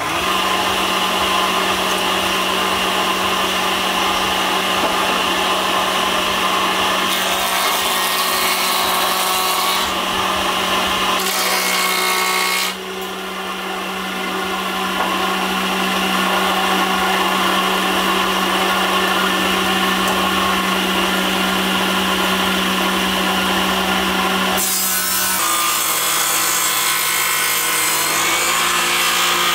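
Handheld electric power tool running steadily, its motor hum under the noise of the tool working wood. The sound changes abruptly a few times, dropping briefly about halfway through.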